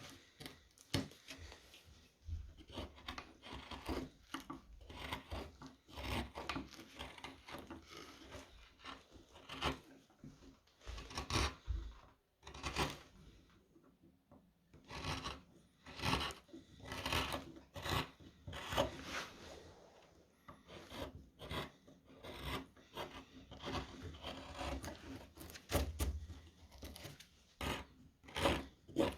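Round chisel (gouge) cutting into the wood of a spoon: short, irregular scraping strokes as shavings are pared off.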